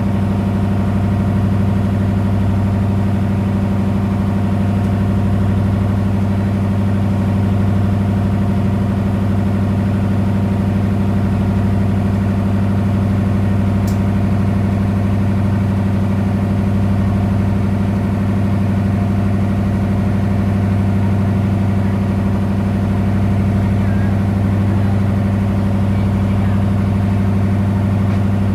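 Boat engine running steadily underway, a loud, even drone that holds the same pitch throughout.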